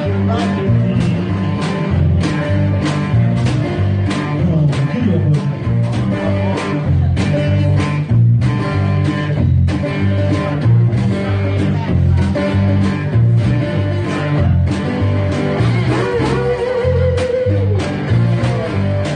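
Blues played live by a small band: dobro-style slide guitar over guitar, a steady drum beat and a deep bass line. A slid note stands out about sixteen seconds in.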